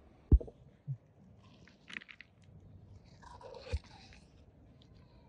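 Food-preparation handling noises: a sharp dull thump, a smaller knock, then crisp crackly rustles and another thump as food is moved about on the pot and banana leaf.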